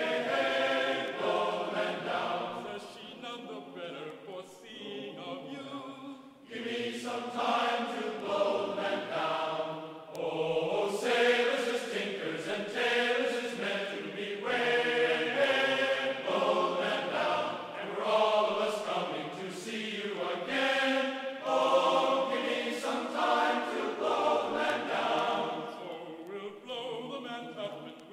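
Background music of a choir singing in sustained, chant-like phrases.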